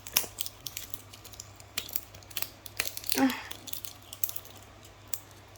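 Toy packaging being handled and unwrapped by hand: scattered sharp clicks and crinkles, with a short vocal sound about three seconds in.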